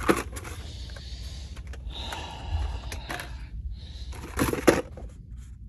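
Carded Hot Wheels diecast cars being handled and sorted: plastic blister packs and cardboard rustling, with sharp clacks just after the start, about three seconds in, and a louder pair of clacks near the end.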